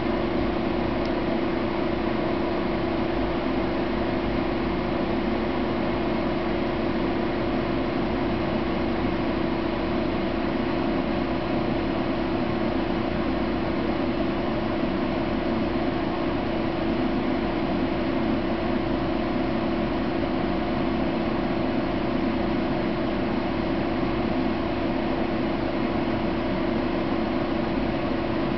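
Steady machine hum with hiss, carrying one steady low tone and never changing in level.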